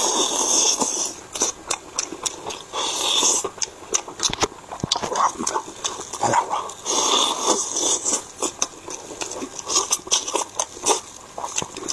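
Close-miked eating: lips sucking and smacking on saucy chicken pieces pulled off the bone, with chewing and many wet mouth clicks and slurps.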